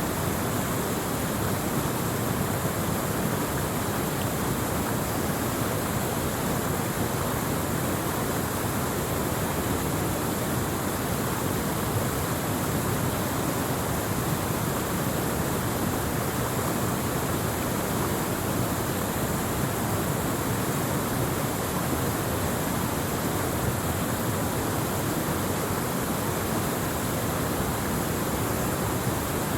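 Waterfall: falling water crashing steadily.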